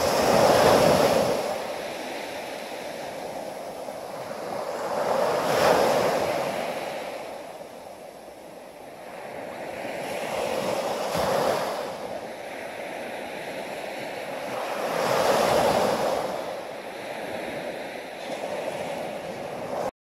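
Small ocean waves breaking and washing up a sandy beach, the surf swelling to a peak about every five seconds.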